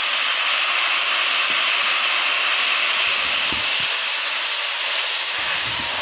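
A steady, loud hiss.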